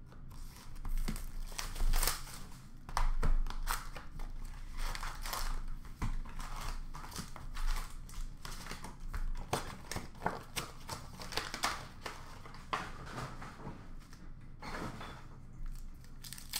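Upper Deck hockey card packs being torn open by hand, their wrappers crinkling and rustling in quick, irregular bursts as the cards are pulled out.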